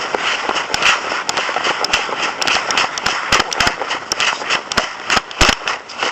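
Airsoft guns firing: a string of sharp, irregular snaps, some close together, over a steady hiss of noise.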